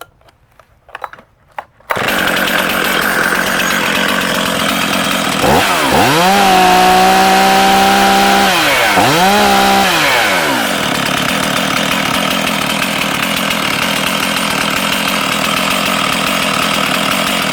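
Stihl MS311 two-stroke chainsaw pull-started, catching about two seconds in and running steadily. About five seconds in it is revved up and held high for roughly three seconds, then revved once more briefly before settling back.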